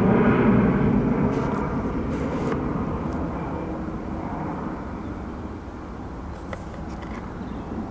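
Airliner's jet engines passing, a loud rumble that fades steadily away over several seconds.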